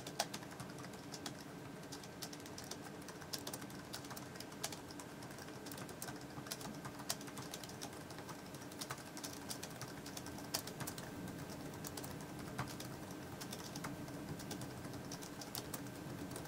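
Continuous touch-typing on the Great Wall U310 keyboard PC's low-profile scissor-switch keys: a quiet, fast, irregular patter of soft key clicks.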